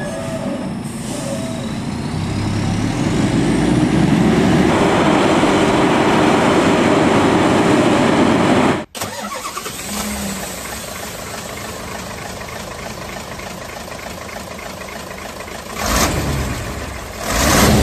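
Heavy truck's diesel engine running under load, growing louder over the first four seconds. The sound breaks off abruptly about nine seconds in and gives way to a quieter steady engine rumble, with two loud rushing swells near the end.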